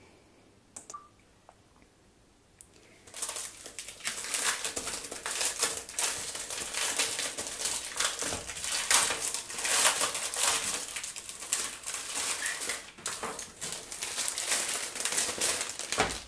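Clear plastic wrapping being torn and peeled off a cardboard box of watercolour tubes, crinkling continuously. It starts about three seconds in, after a few faint taps.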